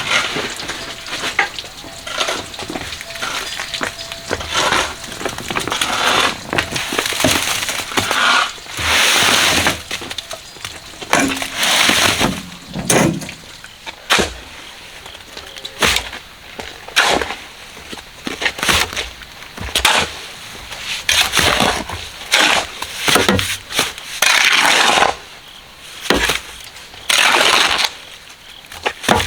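Gritty scraping and crunching of concrete mix being shovelled and spread, in irregular strokes of about a second each.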